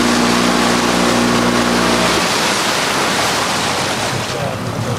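A boat's engine runs with a steady hum and cuts off about two seconds in, leaving wind buffeting the microphone over the wash of the sea.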